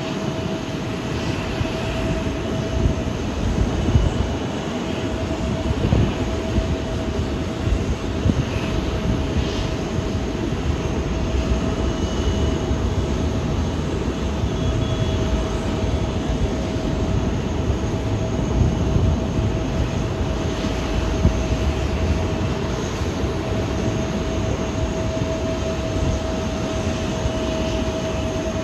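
Jet aircraft engines running steadily: a low rumble with a steady mid-pitched whine over it.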